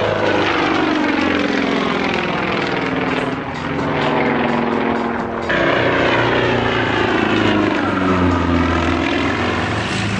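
Sukhoi Su-29 aerobatic plane's nine-cylinder radial engine and propeller in flight, the drone rising and falling in pitch as the plane manoeuvres. About five and a half seconds in, the sound jumps abruptly to a louder, brighter passage.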